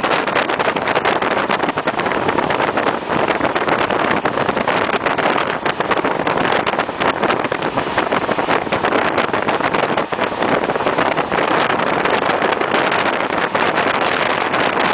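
Passenger train running at speed: a steady rush of running noise shot through with small rattles and clicks, with wind buffeting the microphone.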